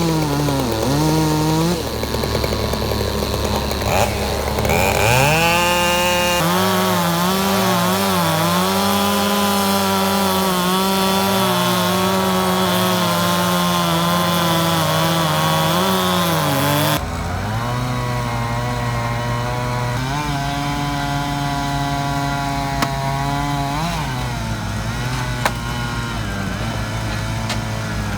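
Chainsaw cutting logs into firewood. The engine revs up sharply about five seconds in and is held at high speed, wavering as the chain works through the wood. Partway through it changes abruptly to a lower, steadier running note.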